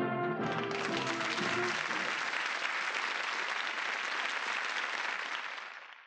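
Studio audience applauding, with a short burst of music underneath in the first couple of seconds; the applause fades out near the end.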